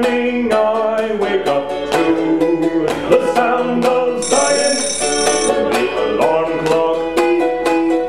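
Live acoustic string-band music: quick plucked strings, banjo-like, in a steady rhythm, with a man singing. A high steady tone joins for about a second midway.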